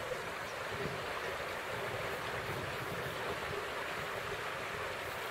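Steady rushing of a flowing river, with wind buffeting the microphone.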